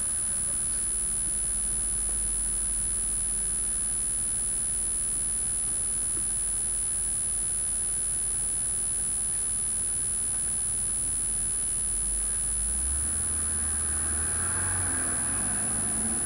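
Steady low rumble of wind buffeting a ground-level camera microphone, with a thin constant high-pitched whine above it.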